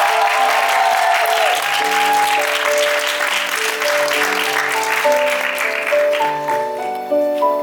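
Audience applause with a few cheers at the start, dying away over about six seconds while gentle piano music plays on.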